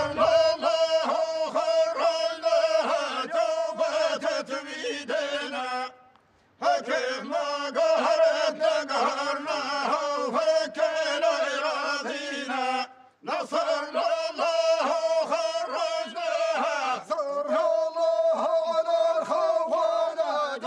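A group of men chanting a song in unison over a steady beat. The chant breaks off briefly twice, about six and thirteen seconds in.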